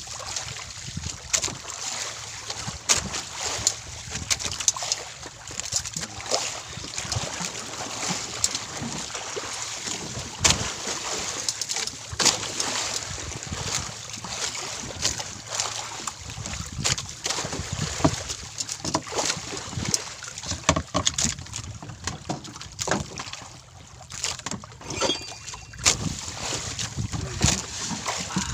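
Wind and water noise aboard a small outrigger fishing boat at sea: a continuous rough rush with a low rumble, broken by many irregular knocks and clicks.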